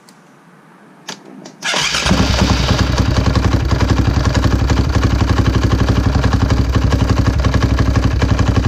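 KTM 525's single-cylinder four-stroke engine starting about two seconds in, then idling steadily with a fast, even pulse, just refilled with fresh oil after an oil change.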